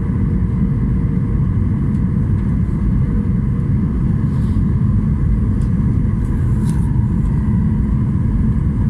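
Steady low rumble of an airliner heard inside the passenger cabin, with faint steady hum tones over it.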